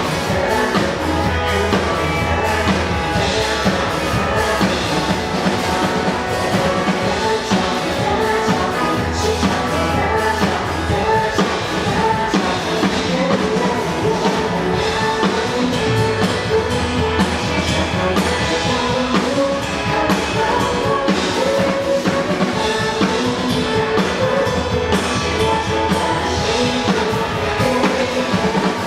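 A rock song played by a band with drums, guitar and bass under a singer's voice, continuing without a break.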